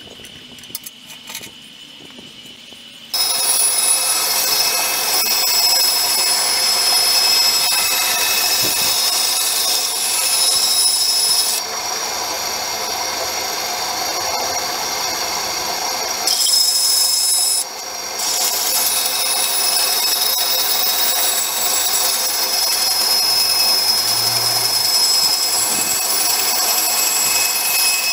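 Restored homemade bandsaw: a few clicks, then about three seconds in its electric motor starts and the saw runs steadily with a high whine as the blade cuts a softwood board. The sound drops and rises a couple of times as the cut goes on. The saw works well again after the restoration.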